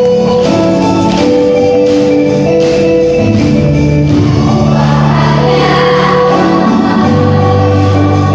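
Mixed school choir of boys and girls singing in harmony, holding chords at several pitches at once. Light percussive beats come at a regular pace through the first few seconds.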